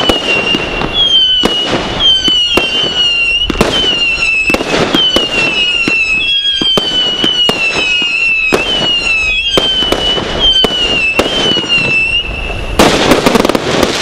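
Fireworks Crazy FC2253GB Category 3 combination Roman candle firing a rapid string of sharp shots, most trailed by a high, wavering whistle. A dense burst of crackling comes near the end.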